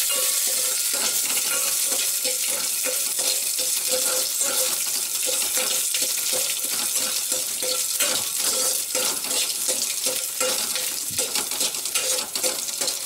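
Green chillies, garlic, curry leaves and mustard and cumin seeds sizzling in hot oil in an aluminium pot. A steel spoon stirs and scrapes the pot in quick regular strokes, about three a second.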